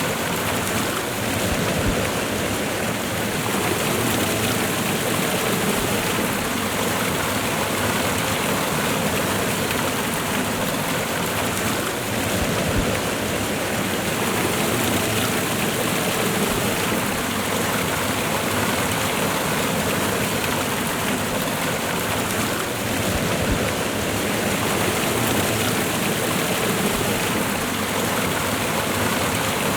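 Waterfall and river water rushing steadily, an even wash of noise that doesn't change.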